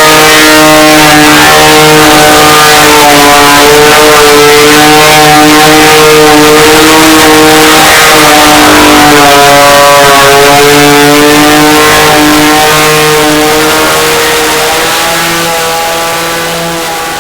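A motor running steadily, its pitch wavering slightly up and down, then fading away over the last few seconds.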